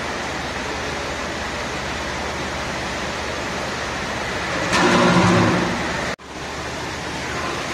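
Steady rushing background noise. About five seconds in, a brief louder sound with a pitch to it rises above the noise. Just after six seconds everything drops out for an instant.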